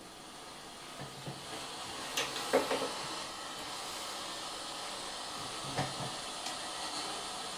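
Steady hiss that swells over the first few seconds and then holds, with a few clicks and knocks.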